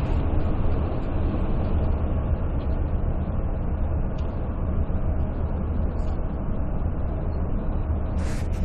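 Steady low rumble of a moving bus, engine and road noise heard from inside the passenger cabin. A brief rustle comes near the end.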